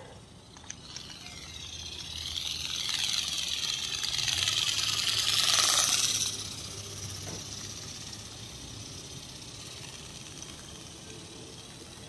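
A vehicle passing by: its noise grows for several seconds, peaks about six seconds in, then falls away quickly.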